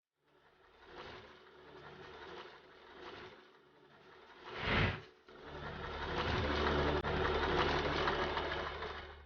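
Usha Janome electric zig-zag sewing machine running and stitching, quieter and uneven at first, then louder and steady from about halfway, with a brief louder sound just before the change.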